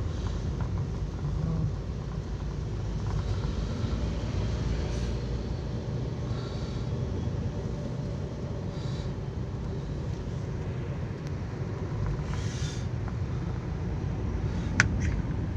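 Steady low engine and road rumble inside a moving taxi's cabin, with a single sharp click near the end.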